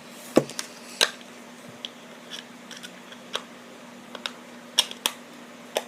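Irregular sharp plastic clicks and taps, about nine in all, from a toy helicopter's parts being handled and taken apart. A faint steady low hum sits underneath.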